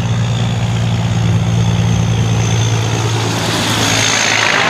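Semi-truck's diesel engine running with a steady low drone as the truck drives past, with road and tyre noise swelling near the end as it comes close.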